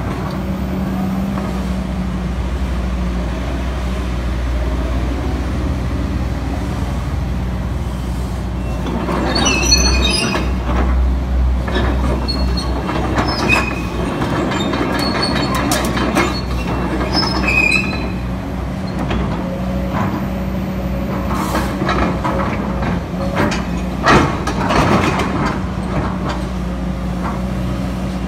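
Kobelco SK210LC-8 hydraulic excavator's diesel engine running steadily with hydraulic load as the machine swings and works its boom and arm. Short high squeals come and go between about 10 and 18 seconds in, and a couple of sharp knocks sound late on.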